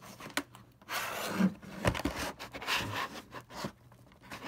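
Hard plastic blister packaging being handled and worked at: rubbing and scraping rustles in several short bursts, with a sharp click about two seconds in.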